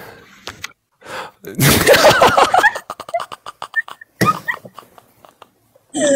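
People laughing hard: a loud outburst of laughter about a second and a half in, breaking into a quick run of short laughs, with another burst of laughter near the end.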